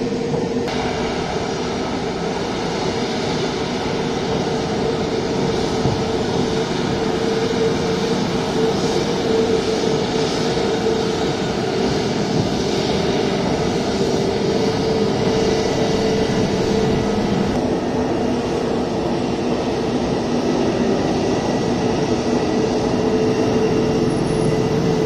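Jet airliner engines running at steady power: a loud, even roar with a constant hum that holds the same pitch throughout.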